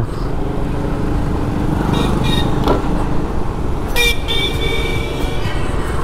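Road traffic with vehicle horns: a steady low rumble of traffic and engines, two short toots about two seconds in, and a longer honk starting about four seconds in and lasting over a second.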